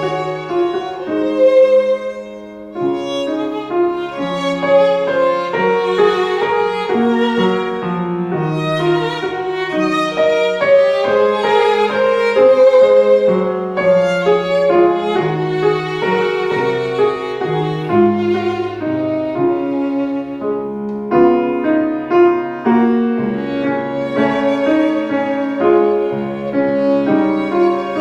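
Instrumental music led by violin over piano accompaniment, a slow melody of held notes with vibrato.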